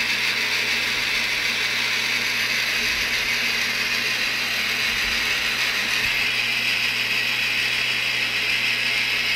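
Metal lathe boring out a cast iron bushing with a boring bar: the steady, even hiss and scrape of the cut, over a low steady hum of the machine.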